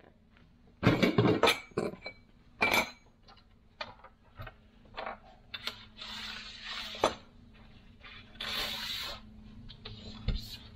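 Small steel bolts, nuts and washers from a solar-panel Z-bracket mounting kit clinking as they are tipped out and pushed around by hand on a flat panel surface. The sharpest clinks come in the first three seconds, followed by lighter scattered ticks and short stretches of parts sliding across the surface.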